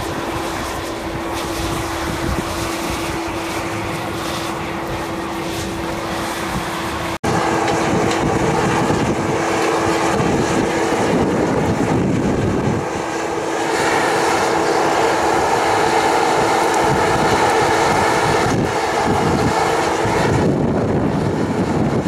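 Electric blower fan forcing air into a small blast furnace while it is tapped: a steady roar with a constant hum. The sound breaks off for an instant about seven seconds in and returns fuller and louder.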